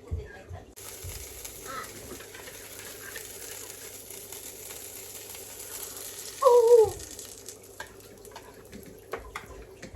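Pancake batter sizzling in a hot frying pan: a steady hiss that starts suddenly about a second in and fades out after about seven seconds. A short, loud squeal falling in pitch comes about six and a half seconds in.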